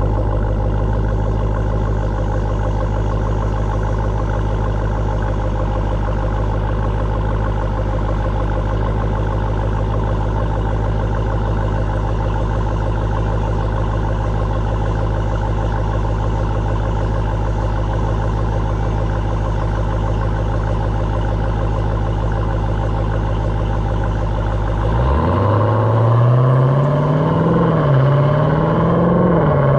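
Jeep Trackhawk's supercharged 6.2-litre Hemi V8 running at a steady, low engine speed. About 25 seconds in it revs up and gets louder, its pitch climbing and then dipping and rising again a couple of times.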